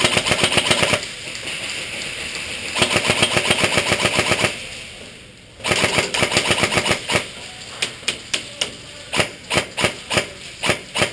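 Airsoft guns firing: three long full-auto bursts of rapid clicking, then a string of single shots a few per second.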